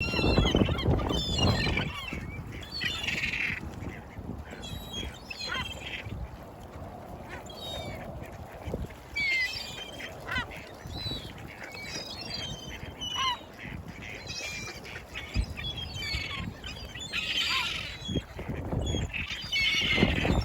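A flock of wild birds calling over one another in many short, high calls, some falling in pitch. A low rumble rises under them at the start and again near the end.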